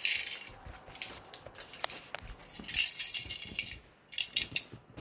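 Loose metal coins jingling and clinking as they are handled and spread out on a bed, in several short bursts with a few single knocks between.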